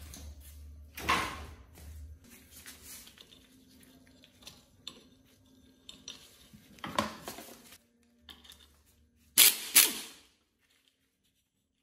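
Hand tools working on rusty metal moped parts: metal clinks and clanks with a sharp knock about a second in and a few clanks midway. Near the end come two short, loud sharp bursts close together, then the sound stops abruptly.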